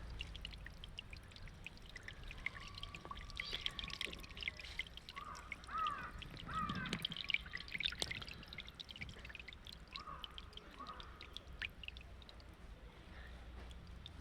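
Water pouring and trickling, with many small splashes and drips, busiest in the middle and tapering off near the end.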